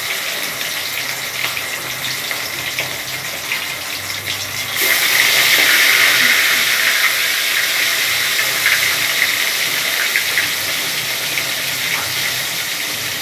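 Pieces of rohu fish sizzling as they fry in hot oil in a steel kadai, a steady hiss with fine crackles that grows louder about five seconds in.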